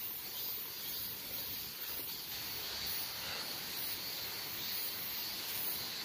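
Steady high chirring of insects, with faint rustling and scraping as fingers loosen forest soil and leaf litter around a wild ginseng root.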